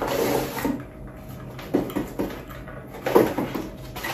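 Cardboard shipping box being handled: flaps and paper rustling and scraping in three short bursts as a wrapped item is lifted out.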